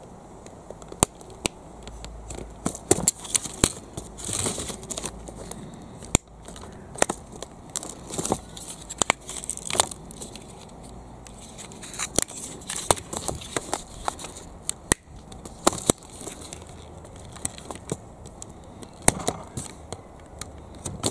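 Hobby knife cutting and trimming soft black plastic from a toy tractor body part, with irregular sharp clicks and cracks as the plastic is cut and worked, and a few brief scraping passes.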